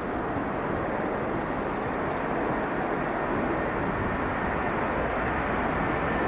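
Jet engine noise from a landing Airbus A330-300 (GE CF6-80E1 turbofans): a steady rushing noise that grows slowly louder.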